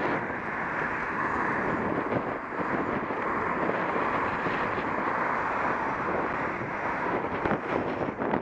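Steady rush of wind on the microphone while moving along, mixed with the noise of road traffic running beside the path.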